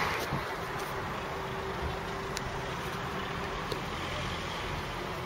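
Steady low background rumble of distant road and rail traffic, with a faint steady hum.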